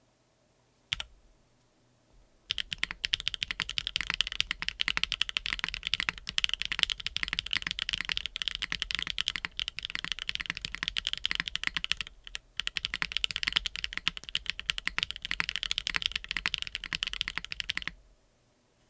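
Fast typing on a custom TKL mechanical keyboard with Akko x HMX Cilantro tactile switches, a carbon-fibre plate and no foam, giving a high-pitched clack. One lone keystroke comes first, then a long run of rapid keystrokes with a short break about two-thirds of the way through.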